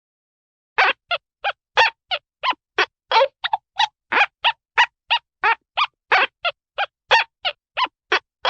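A cartoon sound effect of rapid, goose-like honking: about three short squawky honks a second, with dead silence between them, starting about a second in.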